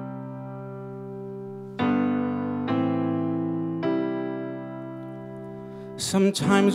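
Digital piano playing slow, held chords as the introduction to a song, each chord left to ring and fade before the next; a man's voice starts singing near the end.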